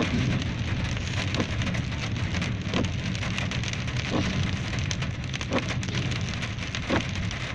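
Rain falling on a car's roof and windscreen, heard from inside the moving car over the steady low hum of the engine and tyres on the wet road. A faint short swish repeats about every second and a half.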